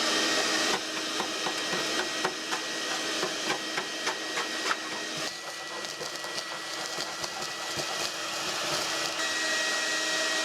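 Light clicks, taps and scraping from hand work on the rusted parts of an old gas barbecue as it is taken apart, over a steady hiss. The clicks come thick in the first half and thin out after about five seconds.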